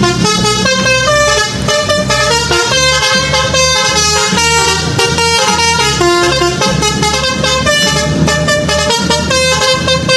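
Multi-tone truck horns playing a fast tune, the notes and chords changing in quick steps several times a second without a break.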